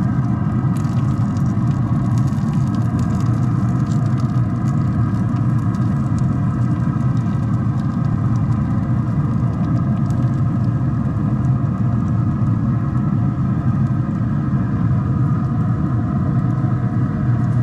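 A steady low rumble with a constant hum over it, like a motor or engine running evenly, unchanged throughout.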